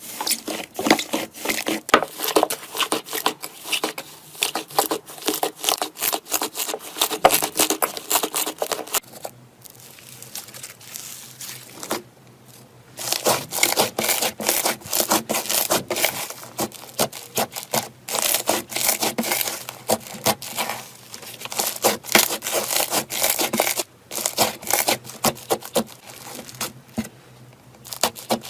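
Slime being squeezed and pressed by hand: a dense run of sticky crackling and popping clicks that stops for a few seconds about a third of the way through and briefly again near the end.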